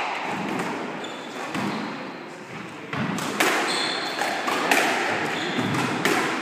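Squash rally: from about three seconds in, a string of sharp hits as the ball strikes racket and walls, with shoes squeaking on the wooden court floor.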